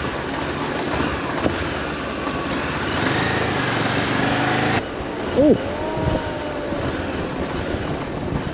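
Honda CB400X parallel-twin motorcycle riding along, its engine running under steady wind rush on the microphone. About halfway through the sound cuts abruptly, and just after it comes a short squeak that rises and falls.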